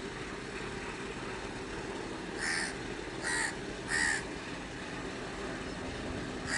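A crow cawing three times, about two-thirds of a second apart, over a steady low engine rumble.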